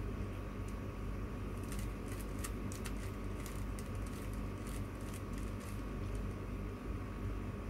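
Plastic Rubik's cube being turned by hand, a quick run of light clicks from the layers snapping round between about two and six seconds in, over a steady mechanical hum.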